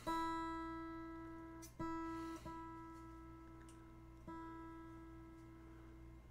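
Acoustic guitar string plucked four times, the same single note each time left to ring and die away: the guitar being tuned before a song.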